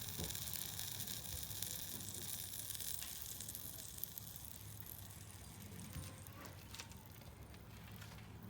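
Faint sizzling hiss of flux as solder melts onto a twisted wire splice under a soldering iron, dying down after about four seconds, with a few small ticks.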